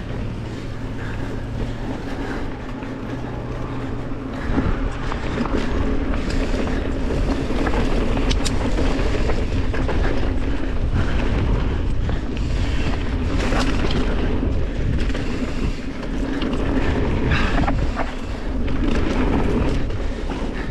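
Mountain bike riding down a dirt trail: steady rolling noise of knobby tyres on loose dirt, with frequent sharp clicks and rattles from the bike over bumps. It grows louder about four and a half seconds in.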